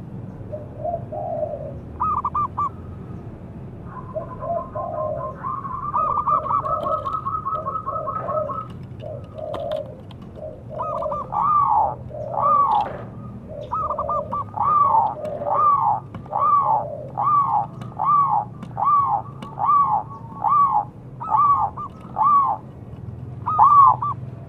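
Zebra dove cooing: uneven notes and a rapid stuttering trill a few seconds in, then a long run of clear rising-and-falling coos, about one and a half a second, getting louder in the second half.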